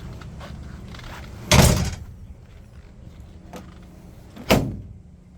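Two loud slams about three seconds apart, a hinged lid or door on a 1976 Jeep CJ7 being banged shut; the first is a longer clatter, the second a short sharp bang.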